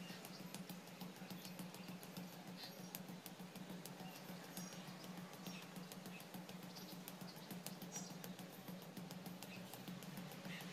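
Rapid, light thuds of bare fists on a cylindrical punching bag, a quick irregular patter of many strikes. A steady low hum runs underneath.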